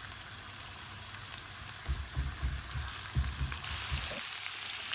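Chopped onion sizzling as it fries in butter and vegetable oil in a pan, with a few low thuds in the middle; the sizzle grows brighter near the end.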